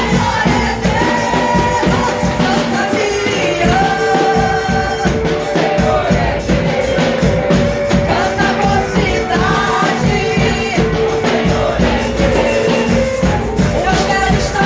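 Gospel band music with singing over a steady drum beat.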